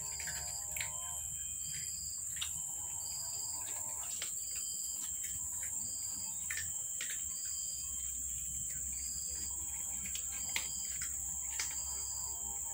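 A steady high-pitched insect drone, with a short high chirp repeating about once a second. Scattered faint clicks, the crunching of cats eating dry kibble, sound over it.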